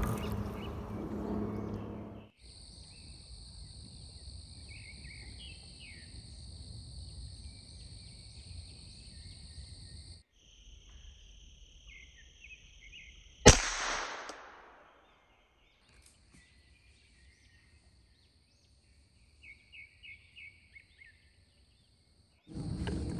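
Insects droning in a steady high buzz, broken by a single sharp rifle shot about halfway through that rings off over a second or so. A few short chirps come near the end, and a louder rustling noise stops about two seconds in.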